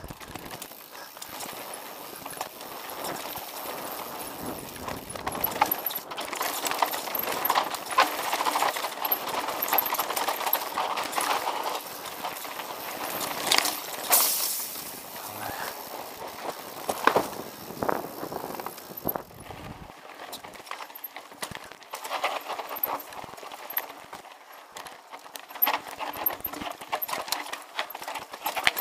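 Mountain bike riding over a rough dirt and rocky trail: tyres on dirt and stones, with the bike rattling and clattering over the bumps. The clatter is busiest through the middle and eases after about nineteen seconds.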